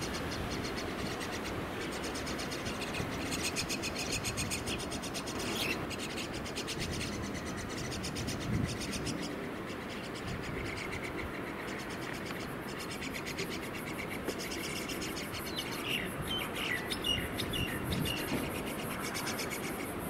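Common myna nestlings giving raspy, rapidly pulsed begging calls in repeated bouts, with a few short chirps near the end, over a steady low rumble.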